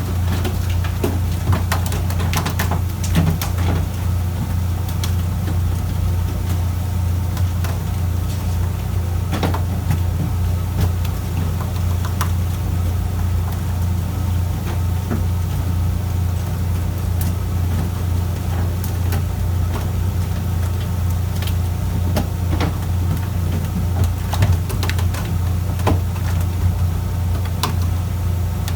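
A fishing boat's engine running with a steady low hum, with scattered light clicks and knocks.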